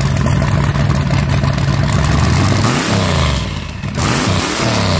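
Engine revving sound effect: a loud engine runs at a steady pitch, then revs, its pitch sweeping up and down twice in the second half.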